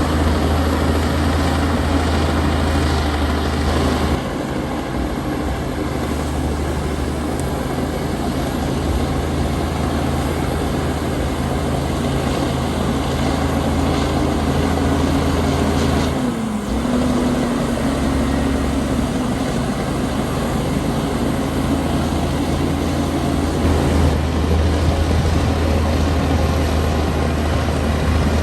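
Komatsu D60P bulldozer's diesel engine running steadily under load. Its pitch dips briefly about sixteen seconds in and then picks up again.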